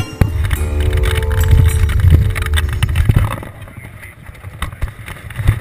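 Open-sided off-road vehicle driving on a bumpy dirt road: a low rumble with scattered knocks and rattles. The rumble drops away about three seconds in.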